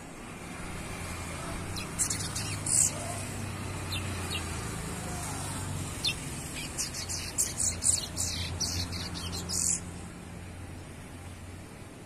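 Young brown-plumaged chestnut-bellied seed-finch (curió) singing in broken runs of high, sharp notes from about two seconds in until near the end, over the steady low hum of a passing motorcycle engine.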